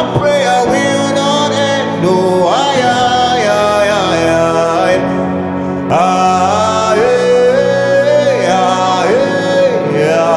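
Male gospel singer singing long, sliding notes over sustained electronic keyboard chords.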